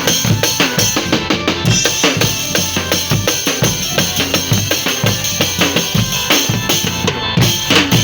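Percussion-led music with a steady drum beat of about three strikes a second over sustained pitched instruments.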